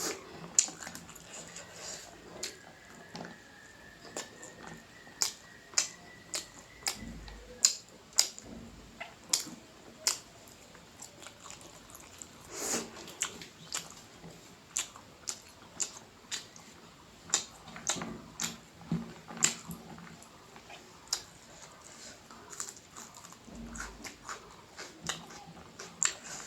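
Close-up mouth sounds of someone eating rice and noodles: chewing, lip smacks and slurps, heard as many short, sharp clicks at irregular intervals.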